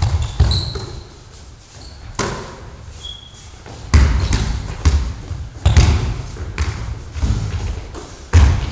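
Basketball bouncing on a gym floor: irregular dull thuds that echo around a large hall. They come sparsely at first and more often from about four seconds in. A brief high squeak sounds around three seconds in.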